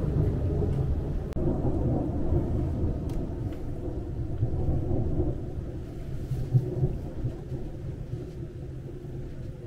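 Thunder rolling as a long low rumble that eases off over the last few seconds, with a few faint ticks of rain on the window glass.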